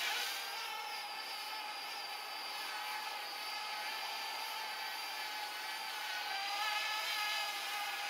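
Parrot Bebop 2 quadcopter's motors and propellers whining steadily in flight, a layered high hum whose pitch wavers a little as the drone adjusts its speed.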